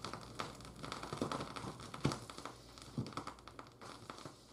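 Faint, irregular small clicks and crinkling rustles, with a few slightly sharper clicks spaced about a second apart.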